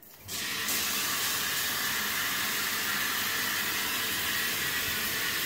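Shower running: water spraying in a steady hiss, switched on abruptly a moment in.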